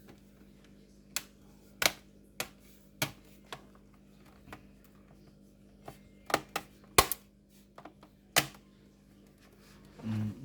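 Plastic bottom cover of a laptop being pressed back onto the chassis, its clips snapping into place: a dozen or so sharp, irregular clicks, the loudest about seven seconds in.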